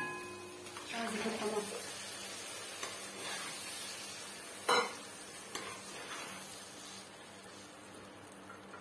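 Strained tomato juice poured into hot oil with garlic and spices in a pot, sizzling and then slowly quieting as it settles, while a spoon stirs it. A single knock of the spoon against the pot comes about five seconds in.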